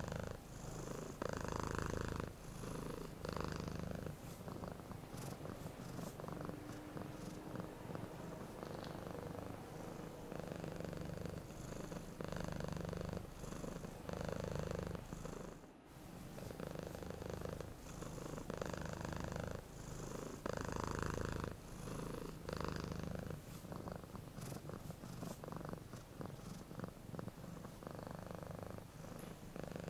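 Domestic cat purring steadily, the purr swelling and easing in a regular rhythm with each breath in and out. It breaks off for a moment about halfway through.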